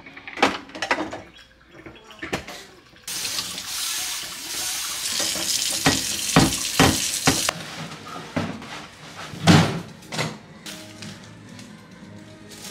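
Kitchen tap running for about four and a half seconds, starting and stopping abruptly. Around it are scattered knocks and clatter of things being handled and set down, with a louder thump near the end.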